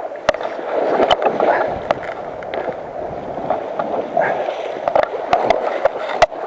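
Fast, shallow river current rushing and splashing close around a wading person, with scattered small knocks.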